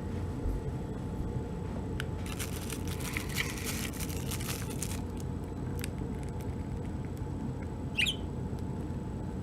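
Pet budgerigar making quiet sounds over a steady low background hum: a stretch of soft, scratchy high-pitched chatter from about two to five seconds in, and one short chirp near the end.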